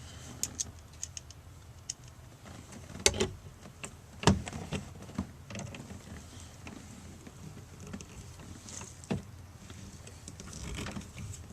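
Scattered clicks and knocks of speaker parts, brackets and screws being handled and fitted during a car door speaker replacement, with two louder knocks about three and four seconds in.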